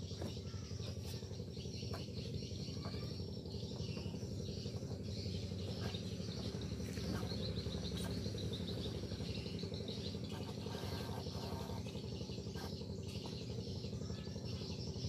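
Birds chirping and insects trilling in high, busy calls, over a steady low drone.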